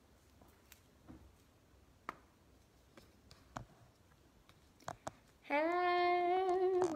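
Scattered soft clicks and taps of a phone being handled. About five and a half seconds in, a woman's voice comes in loud, holding one long drawn-out note.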